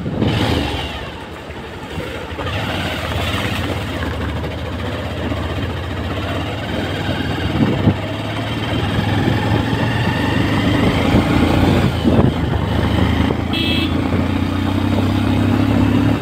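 Motorcycle engine running as the bike is ridden, with road noise; the sound grows gradually louder, and the engine note rises near the end.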